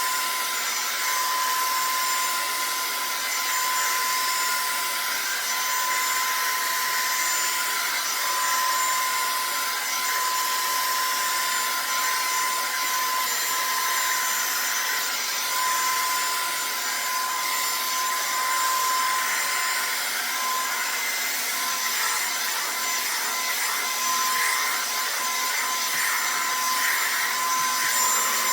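Revlon One-Step hair dryer brush running steadily, a blowing hiss with a constant high whine from its motor.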